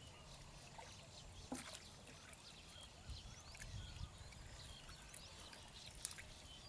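Quiet ambience with faint scattered splashes and clicks of hands groping through shallow muddy water, and a few faint high chirps.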